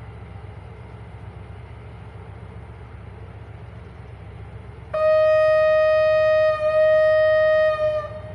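Diesel locomotive's air horn sounding one long steady blast of about three seconds, starting about five seconds in, over the low rumble of the idling locomotive.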